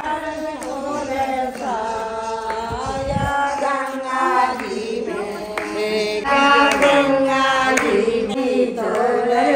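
Devotional singing with long held, chant-like notes.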